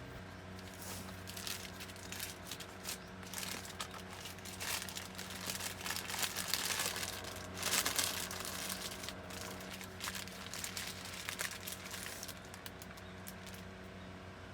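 Wrapping being handled, crinkling and rustling in irregular bursts that are loudest about six to eight seconds in, over a steady low hum.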